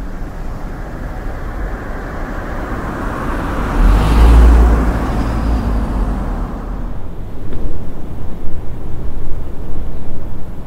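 Road traffic noise at night, with one vehicle passing close by: its sound swells to a peak about four seconds in and fades away over the next few seconds.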